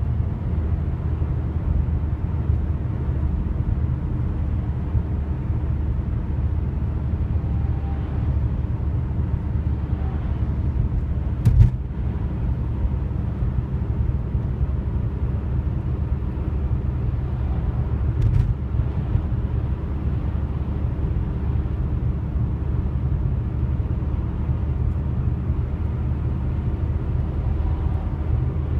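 A loud, low, steady droning hum made of several held tones, the sound the uploader calls strange trumpet sounds. Two short knocks come a few seconds apart around the middle.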